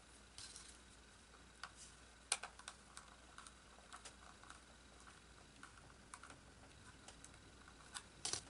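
Faint, irregular small clicks and ticks from handling a small plastic electronics-kit case while its little screws are tightened. The sharpest click comes a little over two seconds in, and a quick cluster of clicks falls near the end.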